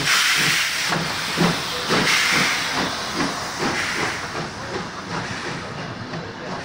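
Pt47 steam locomotive hissing loudly as it moves off, steam blowing from the open cylinder drain cocks around the wheels, with soft exhaust beats about two a second. The sound fades toward the end.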